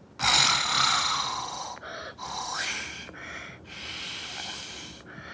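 Breath blown hard through a metal straw into slime, inflating a small slime bubble. There are three long hissing blows with short breaks between, the first the loudest.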